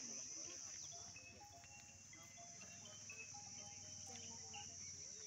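A steady, high-pitched insect chorus, crickets or cicadas, droning without a break, with faint short steady-pitched notes sounding over it.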